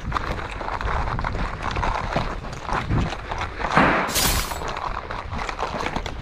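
Footsteps of someone running on dirt and gravel, as a stream of irregular knocks and scuffs, with a brief loud hiss about four seconds in.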